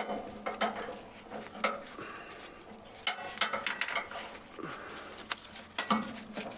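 Metal clinking and knocking from handling the load's tie-down straps: scattered knocks, a rattling burst of ringing clinks about three seconds in, and another short ringing clink near the end.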